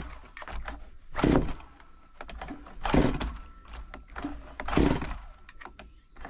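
STIHL MS 194 TC top-handle chainsaw's recoil starter being pulled three times, about a second and a half apart, each pull a short whirring rasp; the engine does not catch and run.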